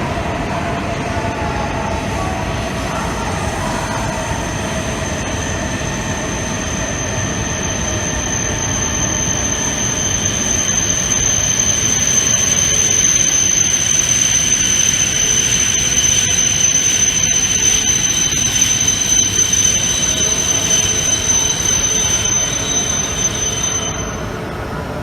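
Shinkansen train moving along the station platform, its running noise growing louder through the middle, with a steady high-pitched squeal that sets in several seconds in and cuts off shortly before the end.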